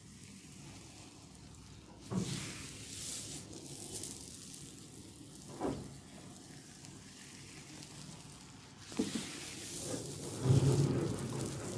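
Hands rubbing and working oiled hair and scalp in a head massage, a wet crackling friction that comes in two stretches, about two seconds in and again from about nine seconds, with a single sharp click about halfway through.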